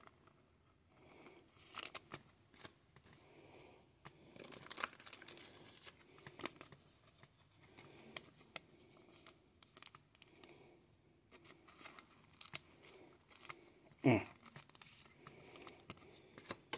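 Soft crinkling and rustling of a thin plastic card sleeve and glossy trading cards being handled, with scattered light clicks. A brief voice sound near the end.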